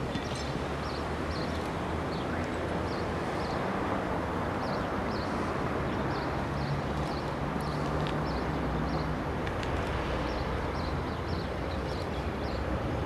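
BDZ class 55 diesel locomotive's engine running as it slowly hauls a line of wagons away, a steady low drone that grows a little stronger midway.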